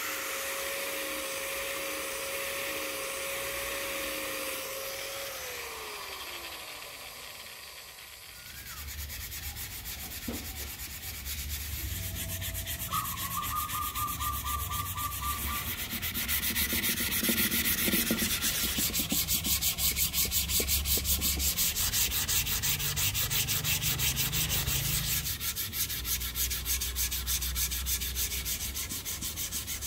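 Electric angle grinder with a sanding pad running, its pitch falling as the motor spins down about five to eight seconds in. Then sandpaper rubbed by hand along a rosewood axe handle in quick repeated strokes, louder from about the middle on.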